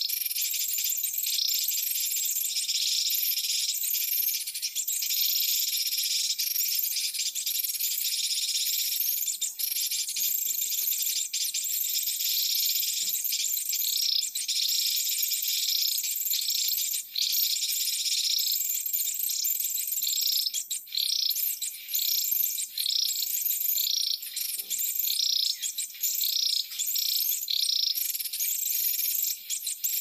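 Dense, steady high-pitched insect buzz of a forest chorus, with short high calls repeating irregularly over it.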